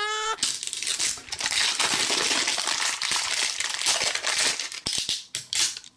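Clear plastic shrink-wrap crinkling and crackling as fingers peel and tear it off a hard plastic cupcake-shaped toy capsule. The film gives a dense run of quick crackles.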